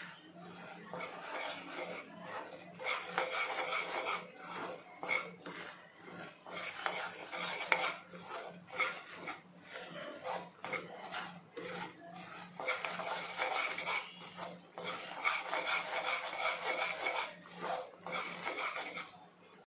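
Metal spoon scraping and stirring a thick gram-flour (besan) mixture around a kadai. The strokes come in several spells of rough, rasping scrapes with short pauses between them.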